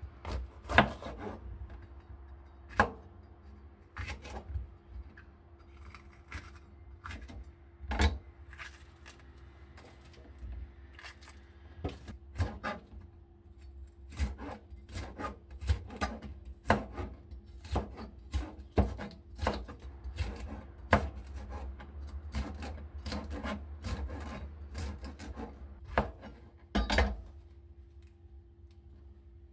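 Kitchen knife cutting spring cabbage on a cutting board. Irregular knocks of the blade on the board come between crisp rubbing of the leaves, over a steady low hum.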